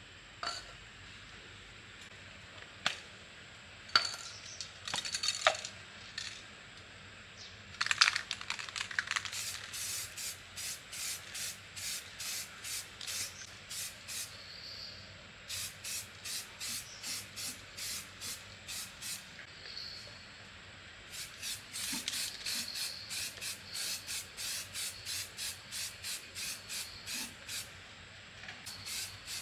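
A few scattered clicks and knocks, then rhythmic abrasive rubbing by hand: even strokes about two and a half a second, in runs broken by short pauses, typical of sanding or scrubbing a part being cleaned up.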